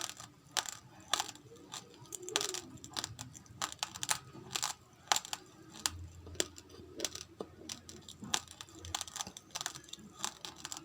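Close-miked crunching of raw rice grains being chewed: sharp, irregular crunches, several a second.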